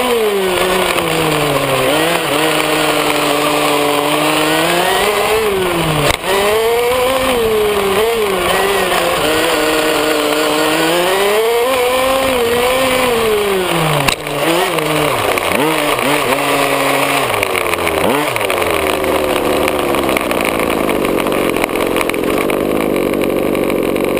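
Radio-controlled buggy's engine running close up, its pitch rising and falling with the throttle, with two sharp knocks along the way. Near the end it drops to a low, steady idle.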